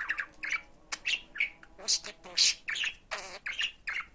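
Talking budgerigar chattering: a quick string of short, high chirps and squawks.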